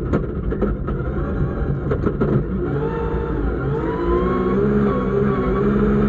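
Rally car's engine heard from inside the cabin, pulling hard under acceleration. A few sharp knocks and rattles come in the first two seconds or so, then the engine's note comes through clearly, its pitch wavering as the revs change.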